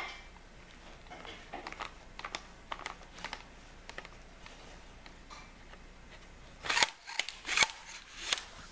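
Small plastic-and-metal clicks and rattles from handling a Knoxx Blackhawk collapsible AR-15 stock on its buffer tube while it fails to lock, with three louder clacks in the last two seconds.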